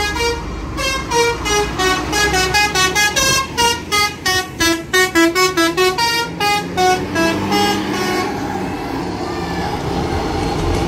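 Indonesian 'telolet' multi-tone bus horn playing a quick tune of short notes over the low rumble of the engine. The tune stops about eight seconds in, leaving the engine and road noise.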